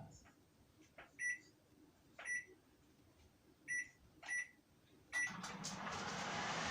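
Microwave oven keypad beeping five times as its buttons are pressed to set 30 seconds, each beep a short high tone. About five seconds in, the oven starts up with a steady hum.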